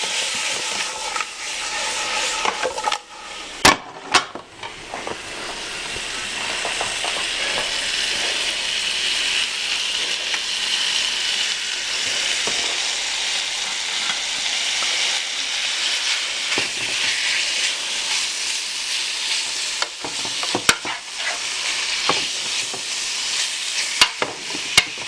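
Thin-sliced sirloin searing in butter in a large sauté pan, a steady sizzle that dips briefly a few seconds in and builds back up. A few sharp knocks are heard, one near the start and several near the end.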